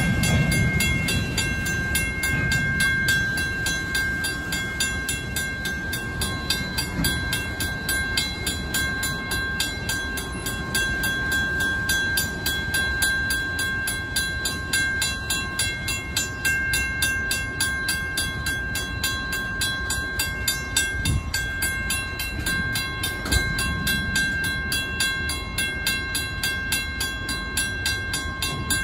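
First-generation WCH mechanical grade-crossing bell ringing with rapid, steady strikes, over the low rumble of a freight train of tank cars at the crossing.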